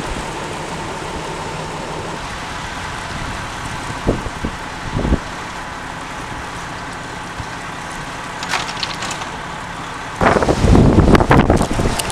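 Strong wind blowing steadily, with a couple of faint knocks, then from about ten seconds in heavy gusts buffet the microphone with loud, ragged rumbling.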